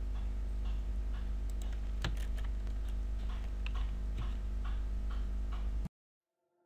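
Irregular clicks of a computer mouse and keyboard over a steady low electrical hum. The sound cuts off abruptly about six seconds in.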